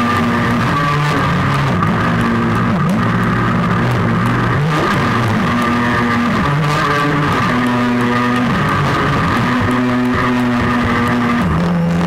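Background music: sustained low notes that step from one pitch to another about every second, at an even, unbroken level.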